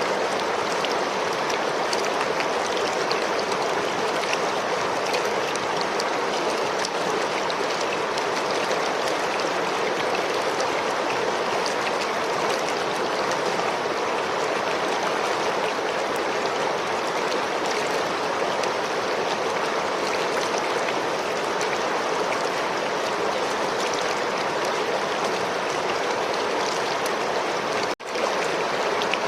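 River water flowing in a steady, unbroken rush, cut off for a moment near the end before it resumes.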